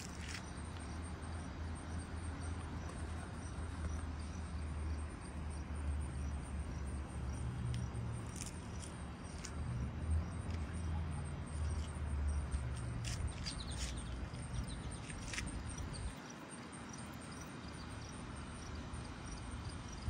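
Outdoor summer garden ambience: a low rumble that drops away suddenly about sixteen seconds in, under faint, evenly repeating insect chirping and a few brief sharp high sounds.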